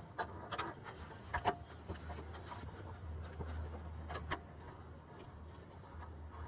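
Light rubbing and a few small clicks and taps as fuel-line fittings are worked by hand onto a canister fuel filter, over a low steady hum.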